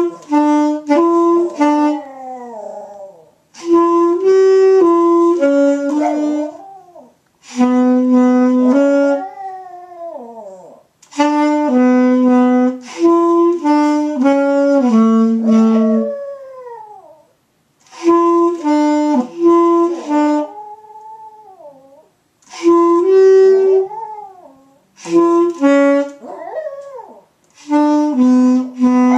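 A saxophone played in about eight short phrases of held notes with pauses between them, while a Maltese dog howls along, its voice sliding and falling over the end of each phrase.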